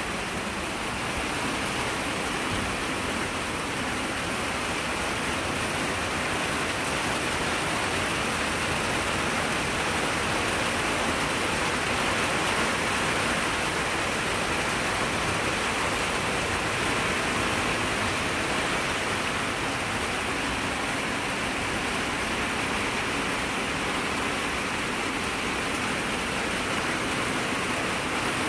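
Heavy rain pouring down steadily, falling on translucent corrugated roof panels.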